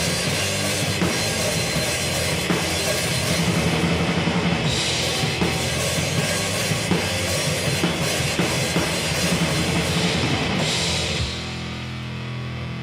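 Noisy hardcore/grindcore band recording: fast, dense drumming with cymbals over heavy instruments. About eleven seconds in, the drums stop and low sustained notes carry on alone.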